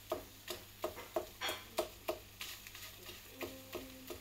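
Wooden spatula knocking and scraping on a nonstick frying pan while it mashes cooked mutton brain in hot ghee, about three short knocks a second, over a light sizzle.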